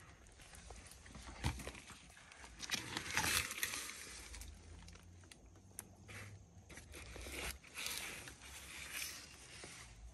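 Soft rustling and scraping, the sound of hand and lizard moving in a monitor lizard's enclosure during feeding. There is a light knock about a second and a half in, and louder rustling about three seconds in.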